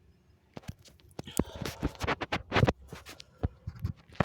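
Paper tissue rustling and crinkling close to the microphone, in irregular scratchy crackles that start about half a second in.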